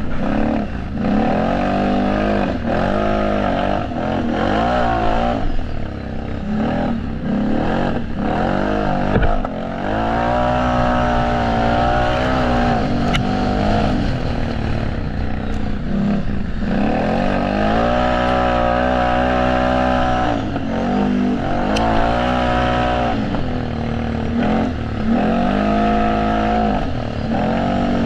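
Racing quad (ATV) engine revving up and down again and again as the throttle is opened and shut, held at high revs for a few seconds at a time in the middle and later part.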